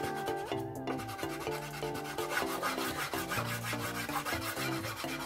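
Background music, a tune of short notes over a bass line, with the quick repeated rub of a fingertip smearing soft pastel across paper.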